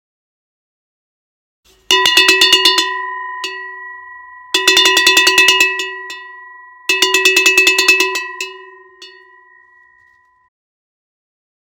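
Handmade long bulged cowbell shaken three times, starting about two seconds in, each shake a quick run of clapper strikes lasting about a second. The bell's ringing tone carries on and fades away after each shake.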